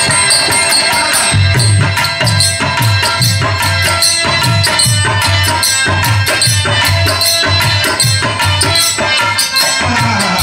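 Harmonium playing a melody in an instrumental Birha folk-music opening. About a second and a half in, a hand drum joins with a steady beat, along with rattling percussion.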